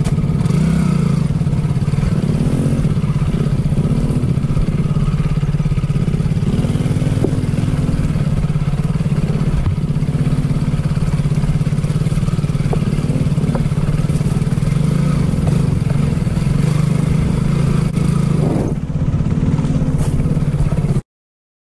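Small motorcycle engine running steadily under way, its revs rising and falling a little. The sound cuts off abruptly near the end.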